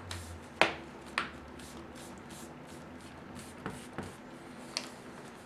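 A handful of sharp clicks and taps, about five spread over a few seconds, the loudest about half a second in, from hands pressing on and handling the laptop's screen assembly.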